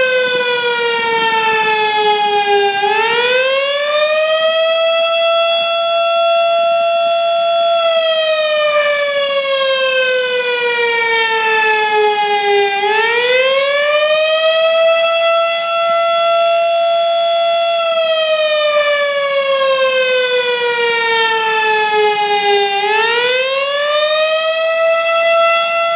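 Federal Signal STH10 electromechanical outdoor warning siren sounding the fire department's Fire Call signal: a loud wail that rises quickly, holds at a steady pitch for a few seconds, then slides slowly down. This happens about every ten seconds, with rises about three, thirteen and twenty-three seconds in.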